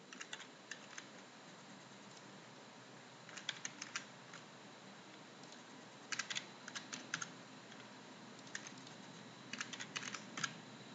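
Keystrokes on a computer keyboard, typed in five short bursts as numbers are entered, over a faint steady hiss.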